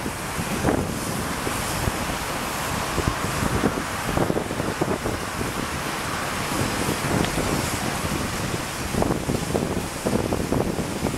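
Steady rushing noise with irregular gusts of wind buffeting the microphone.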